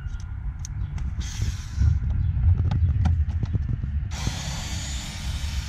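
Cordless power screwdriver spinning a Torx bit to back out the bolts on the front of a Mini Cooper S air box. It runs briefly about a second in and again from about four seconds in, with a few clicks of the bit and tool in between.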